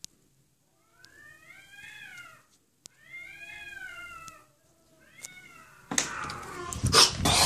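A cat yowling: two long drawn-out calls that rise and then fall in pitch, then a short third one. About six seconds in, loud knocking and rustling come in as the phone is moved.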